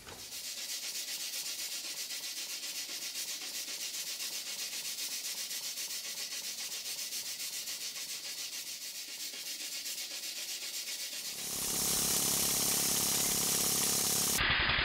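Model horizontal mill steam engine running at speed, a fast, even rhythmic hiss of exhaust steam that sits high in pitch with almost no low end. About eleven seconds in it gives way to a louder, lower running beat from a small vertical single-cylinder model steam engine.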